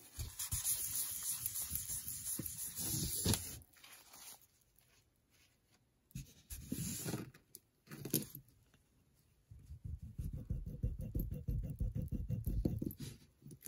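A paper tissue rubbed over a stone slab for the first few seconds, a rustling wipe. After a quiet pause and some brief handling, a metal pendant is scraped back and forth on the black test stone near the end, a rapid low scraping, as the pendant is streak-tested for silver.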